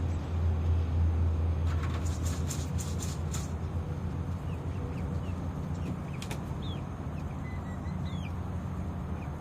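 Steady low rumble with a quick run of rattling clicks about two seconds in, and a few faint high bird chirps later on.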